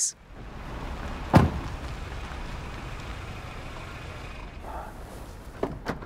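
Film sound of a car in the rain: a steady hiss over a low rumble, with one sharp thud about a second and a half in and a few light clicks near the end.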